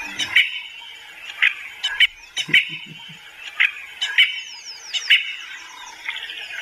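Birds chirping in short, repeated calls and quick falling trills, with a brief low call about two and a half seconds in.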